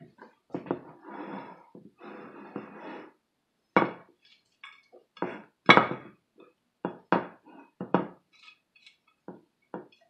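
Ceramic serving plate and ketchup dish handled on a table: a run of knocks and clinks, loudest about six seconds in, after two short stretches of scraping in the first three seconds.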